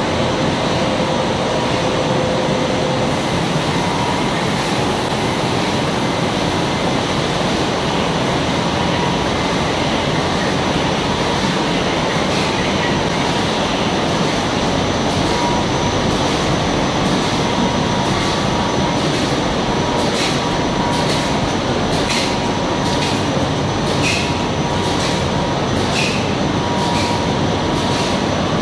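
Three-motor, 8-colour rotogravure printing press running: a steady mechanical rumble and hiss with a faint whine. In the second half, light ticks come about once a second.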